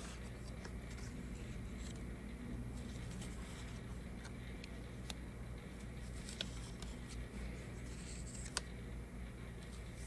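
Cardstock playing cards being slid and flipped over on a tabletop, a faint papery rustle with a few sharp ticks, over a steady low hum.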